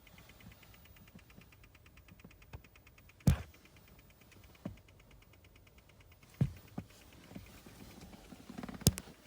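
Rapid, even clicking from a 2018 Honda Odyssey Hybrid: the intermittent abnormal "kachi-kachi" noise that can keep going after the engine is switched off, cause not yet found. A few louder single knocks sound over it, the loudest about three seconds in and near the end.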